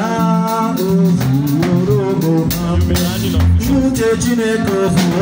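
A man singing a gospel song through a microphone, accompanied by a live band with a drum kit, in a loose, rehearsal-style performance.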